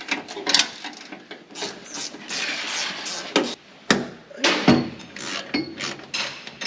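Hand tools working on metal parts of a combine feederhouse: a run of clinks and knocks, with a rasping scrape about two seconds in and the hardest knocks a little after the middle.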